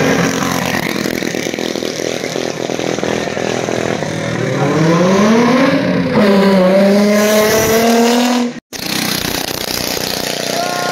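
Nissan 350Z's V6 accelerating hard past the crowd: its note climbs, drops at a gear change about six seconds in, then holds steady under throttle. Before it there is mixed engine noise; after a short cut near the end, more engine noise.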